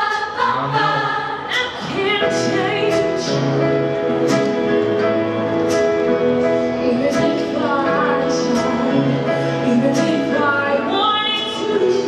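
Mixed youth choir singing sustained chords in several parts, with acoustic guitar accompaniment and a female soloist singing over them into a microphone; a new higher vocal line comes in near the end.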